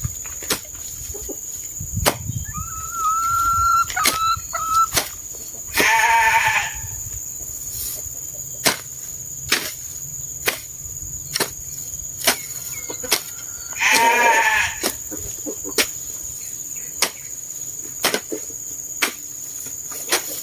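Sheep bleating twice, each bleat a wavering call of about a second, the second about eight seconds after the first. Sharp ticks repeat about once a second behind them.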